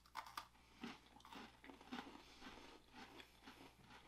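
Faint crunching as two people bite into crunchy chocolate sandwich cookies (H-E-B Mochaccino Twisters), with a few sharp crunches at the very start followed by irregular crunchy chewing.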